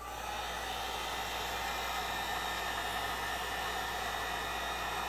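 Heat gun switched on at a low setting, its steady rush of hot air starting right at the beginning and then running evenly.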